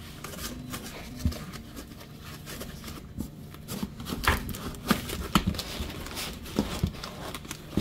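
Cardboard box and foam packing being handled: rubbing and scraping with scattered knocks, the knocks coming more often from about four seconds in.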